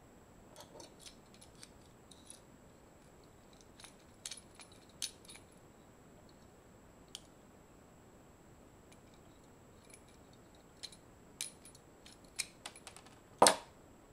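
Light plastic clicks and taps from handling Bic pen and mechanical pencil parts, with one louder knock near the end.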